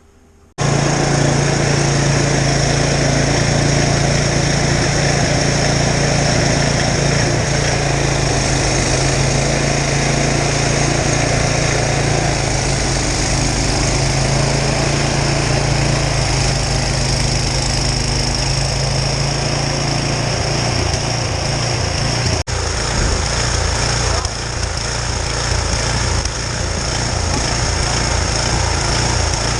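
Gasoline snowblower engine running steadily under load. Its sound breaks off sharply for an instant about 22 seconds in, then carries on less evenly.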